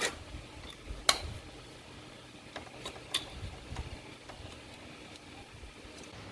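A few sharp clicks and knocks, the loudest about a second in and another about three seconds in, over a low steady background hum.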